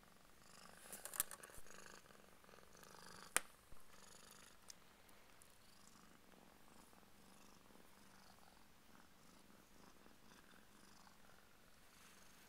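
A Burmese cat purring softly and steadily, with a few sharp clicks or knocks in the first few seconds, the loudest just over three seconds in.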